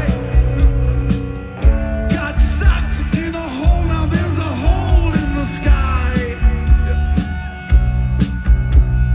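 Live rock band playing: drums, electric guitar and a singing voice.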